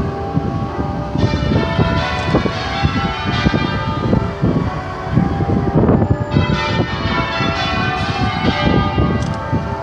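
Church bells ringing a peal, one stroke after another in quick succession, their tones ringing on and overlapping.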